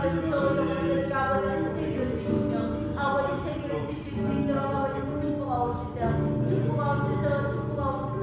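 Church congregation singing together in unison at a dawn prayer meeting, slow sustained notes changing about once a second.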